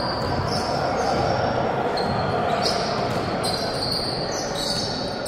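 Basketball shoes squeaking on an indoor court during play: a string of short, high-pitched squeaks over the steady hubbub of a large hall.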